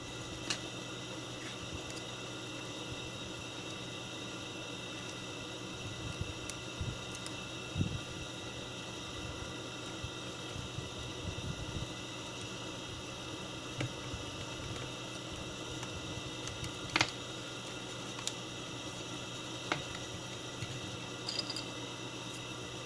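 Steady fan-like room hum with a few small clicks and taps from plastic headset parts being handled during reassembly, the sharpest about seventeen seconds in.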